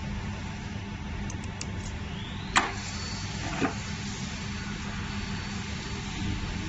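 Jewelry laser welding machine's water cooling system running with a steady machine hum. Two sharp clicks, about a second apart, come near the middle.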